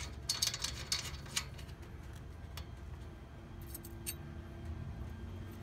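Light metallic clicks and ticks as a cap nut and its washers are turned onto the end of a generator's steel wheel axle by hand, most of them in the first second and a half, with a few more about four seconds in.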